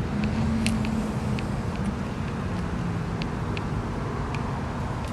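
Steady low outdoor background rumble with a faint hum, dotted with a handful of light clicks.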